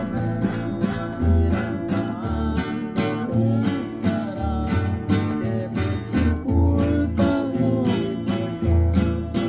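Acoustic guitar music with a steady, plucked bass line and a voice singing a song.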